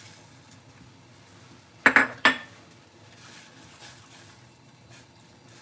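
Two sharp, ringing clinks of kitchenware against a small metal saucepan, about half a second apart near the middle, as curry roux blocks are tipped into the udon broth and stirred.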